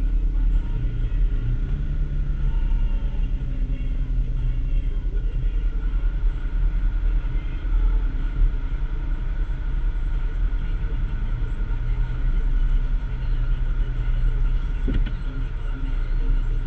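Can-Am ATV engine idling steadily while the machine stands still, heard close up through the hood-mounted camera. There is a short knock near the end.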